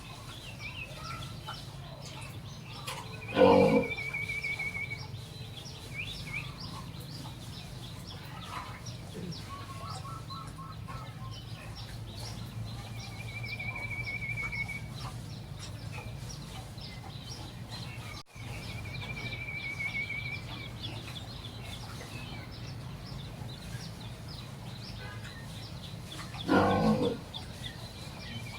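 Birds calling over a steady low hum: a short trill is repeated four times, with a quick run of lower notes in between. A loud, brief animal call with a stacked, pitched sound comes about three seconds in and again near the end.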